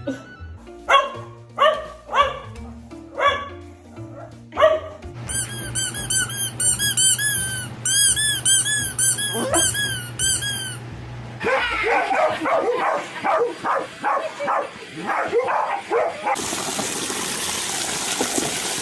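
A dog barking and yipping, with runs of rapid high squeaks, over background music. Near the end a steady hiss takes over.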